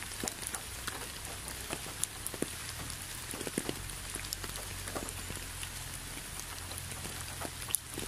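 Rain falling, with scattered single drops ticking irregularly onto hard surfaces and leaves over a light hiss.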